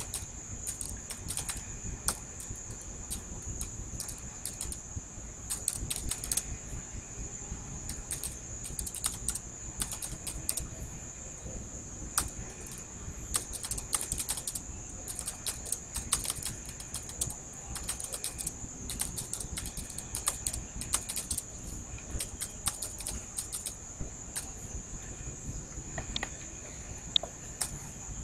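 Typing on a computer keyboard: irregular runs of key clicks broken by short pauses, over a steady high-pitched whine.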